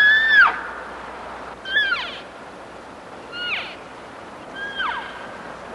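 Elk giving high-pitched mewing calls: a long call that ends with a downward slide about half a second in, then three short calls spaced about a second and a half apart, each dropping sharply in pitch.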